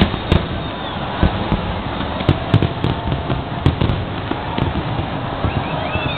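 Aerial fireworks display: an irregular run of booms and sharp cracks from bursting shells, several a second at times, over a steady background din.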